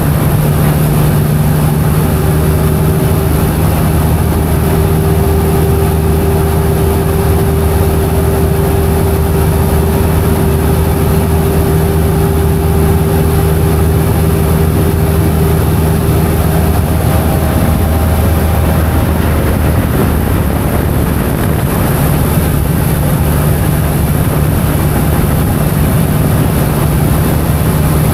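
Cessna 172's piston engine and propeller droning steadily and loudly. The drone changes for a few seconds about two-thirds of the way through, then settles back.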